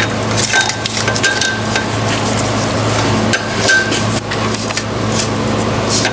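Irregular metallic clinks and knocks, some ringing briefly, as the clutch pressure plate and alignment tool are handled and fitted over the clutch disc. A steady low hum runs underneath.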